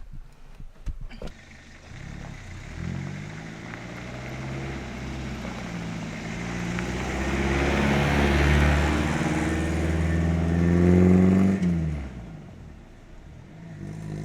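Toyota Hilux 4WD pulling away, its engine revving up and easing off through gear changes and growing louder, then falling away sharply near the end. A few light clicks come before the engine sound.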